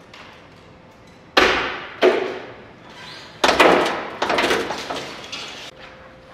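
A series of heavy thumps: two single ones about a second and a half and two seconds in, each fading quickly, then a quicker run of knocks that stops abruptly near the end.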